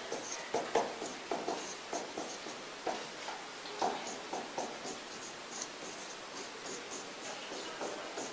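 Marker pen writing on a whiteboard: a quick run of short, separate strokes as Chinese characters are written, busiest in the first half.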